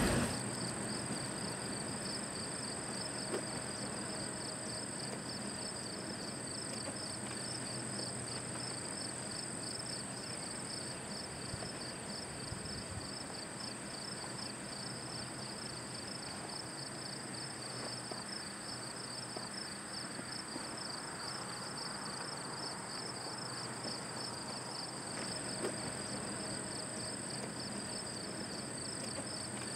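Insects trilling steadily, a fast pulsing high trill with a higher, steady buzz above it, over a faint low rumble from an ore train moving away.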